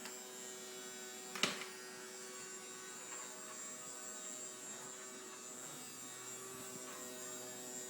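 Steady, faint hum of a small vacuum cleaner's motor running, with one sharp click about a second and a half in.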